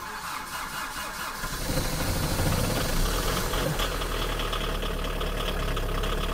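Opel Astra G diesel engine cold-starting in freezing, snowy weather: the starter cranks for about a second and a half, then the engine catches and settles into a steady diesel idle.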